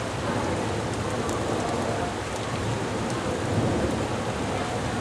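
Heavy thunderstorm downpour: dense, steady rain pouring down, with a low rumble of thunder running under it.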